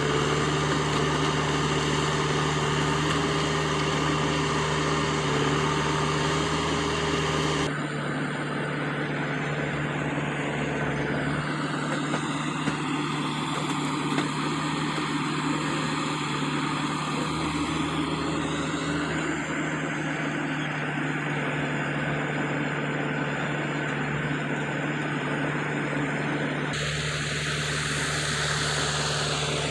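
Diesel engine of a JCB 3DX backhoe loader running steadily while it digs. The sound changes abruptly about eight seconds in and again near the end.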